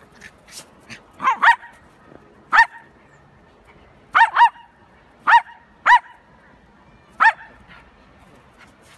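Small dog barking in high-pitched yaps during a play-fight: about eight short barks, some in quick pairs, with pauses between.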